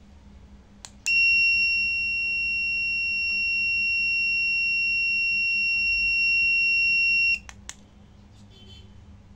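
An electronic buzzer sounds one steady high-pitched tone for about six seconds, then stops abruptly. Sharp clicks come just before it starts and as it cuts off, as it is switched on and off.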